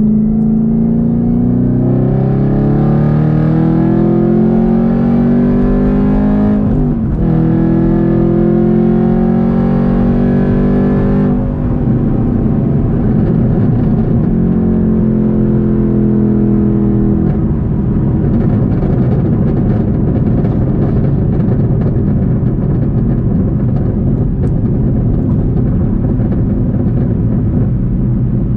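2022 Camaro ZL1's supercharged 6.2 L V8 heard from inside the cabin through an H-pipe catback exhaust: it pulls up through the revs, drops pitch sharply at a gear change about seven seconds in, and climbs again. After that it settles into a steady cruising drone with road noise.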